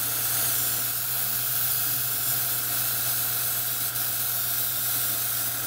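Airbrush spraying: a steady hiss of air and thinned paint at just under 30 psi, with a steady low hum underneath.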